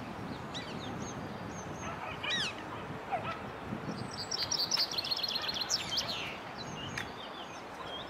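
Male chaffinch singing one song phrase about halfway through: a rapid run of repeated high notes, falling in pitch and ending in a flourish, over steady wind noise. A shorter call with a few overtones sounds about two seconds in.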